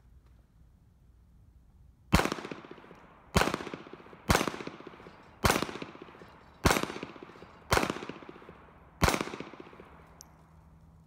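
Seven pistol shots from a Ruger LCP II .380 ACP pocket pistol, fired one at a time roughly a second apart, each followed by a short echo that trails off.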